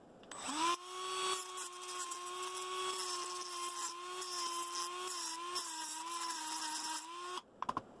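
Dremel rotary tool with a cut-off wheel spinning up and grinding down the chrome-plated plastic chassis of a Hot Wheels toy car: a steady high whine over a rasping grind, its pitch sagging briefly under load. The whine cuts off abruptly near the end, and a few light clicks follow.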